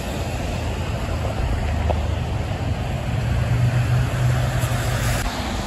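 Highway traffic on wet pavement: a steady hiss of tyres and spray, with a heavy truck's low engine drone building and then cutting off abruptly near the end.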